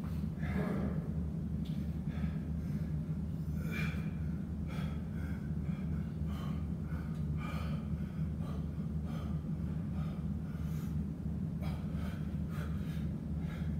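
A man breathing hard in irregular gasping breaths while doing pull-ups, winded from a long bodyweight circuit, over a steady low hum.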